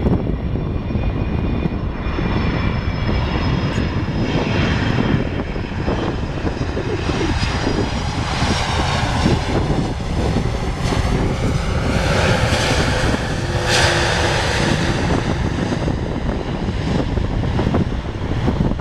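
Jet airliner on approach to land, its engines giving a high whine that sinks slightly in pitch over the first few seconds, then a louder rushing noise through the middle as it passes. Gusting wind buffets the microphone throughout.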